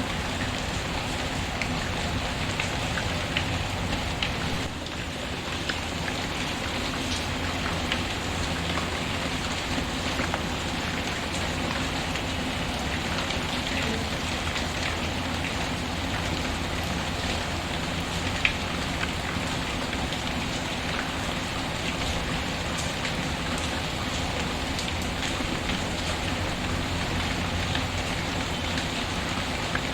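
Steady rain falling, mixed with the scattered small crackles and pops of a wood fire; one pop stands out a little louder past the middle.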